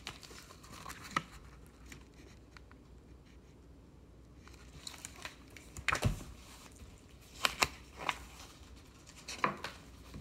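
Handling of a picture book: pages turned and paper rustling, with scattered short knocks and crinkles from hands on the book, the loudest a thump about six seconds in.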